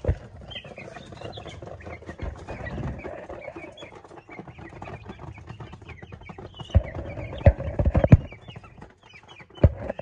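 Chickens clucking and cheeping in a wire coop as feed is put in for them. Several sharp knocks come about seven to eight seconds in, and one more near the end.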